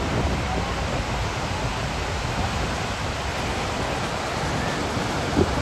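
Steady rushing roar of Niagara Falls' falling water, with a brief thump near the end.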